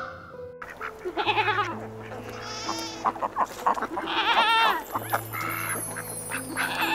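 Goats bleating several times in short, wavering calls, over soft background music of long held notes.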